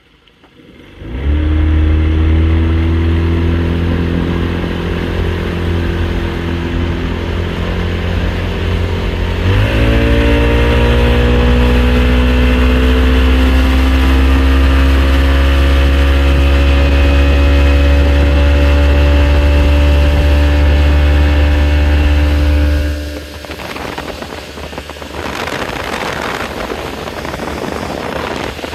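2000 Johnson 50 hp outboard motor running, its pitch jumping up about ten seconds in as it is throttled up and then climbing slowly as the boat gains speed. About twenty-three seconds in the engine falls away under a rush of wind and water.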